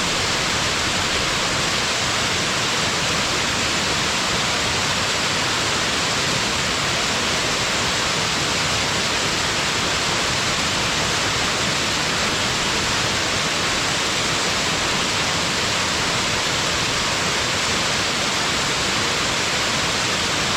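Waterfall pouring steadily: a constant, even rush of falling water, strongest in the upper-middle range.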